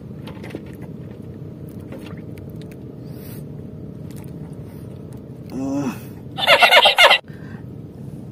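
A man's short pained groan about five and a half seconds in, then a louder strained cry of about a second, over a steady low hum. The cry comes as he works at a fishhook whose barb is lodged in his finger.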